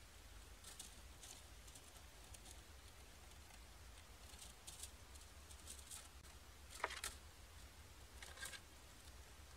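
A mouse rustling and scratching in the dry straw of a hedgehog nest box: faint, scattered crackles, the loudest about seven seconds in, over a steady low hum.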